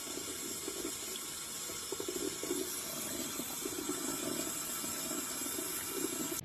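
Steady rush of running water with a fine crackle through it.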